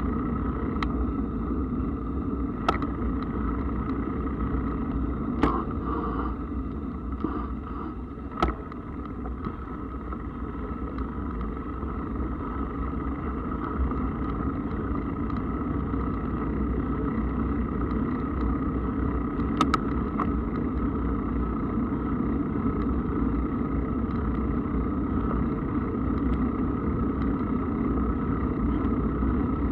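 Steady rolling rumble of a mountain bike being ridden along a path, with a few sharp clicks or knocks scattered through.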